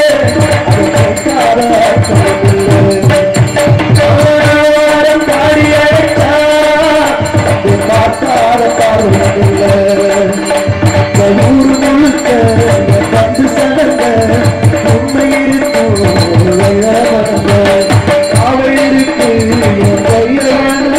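Live Indian instrumental stage music: a gliding melody line over tabla and hand drums keeping a steady beat.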